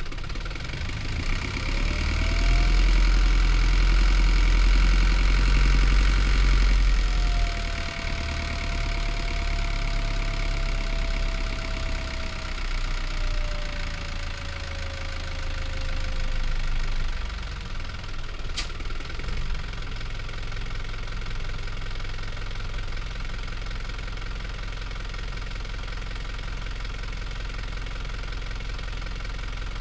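Hino Liesse bus's 4.7-litre J05D four-cylinder diesel engine on the move. It pulls loudly for several seconds near the start with a whine rising in pitch, then eases off while a whine slowly falls. A single sharp click comes about two-thirds in, and the engine then runs on steadily at low revs.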